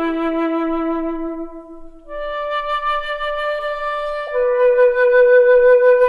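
Background music: a solo flute playing slow, long held notes, fading to a short pause about two seconds in before the next notes begin.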